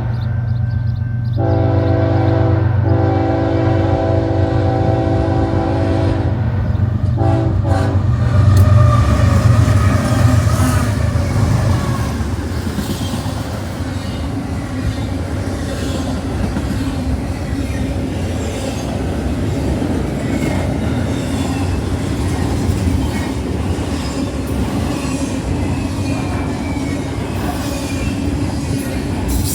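A fast freight Z-train's locomotive air horn sounds a chord in long blasts, then a short blast about seven seconds in. The locomotives pass with a heavy rumble, and the cars then rush by with steady wheel noise, rail clatter and faint wheel squeal.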